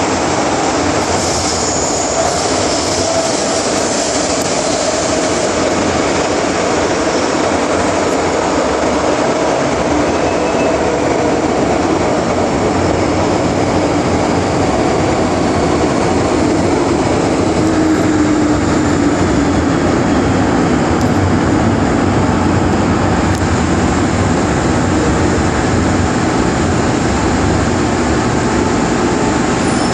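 MTR Island Line metro train running between stations, heard from inside the car: a steady loud rumble of wheels and running gear, with a faint whine that slowly shifts in pitch.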